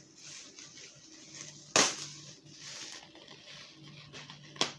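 Thin plastic carrier bag rustling and crinkling as it is handled. A sharp snap of the plastic comes about two seconds in, and a second, shorter one near the end.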